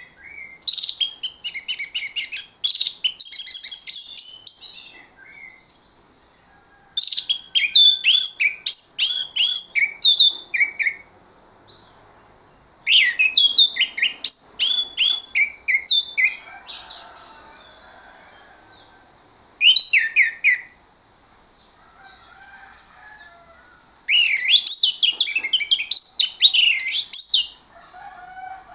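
Orange-headed thrush singing in full voice: loud bouts of rapid, high notes, many falling in pitch, broken by short pauses.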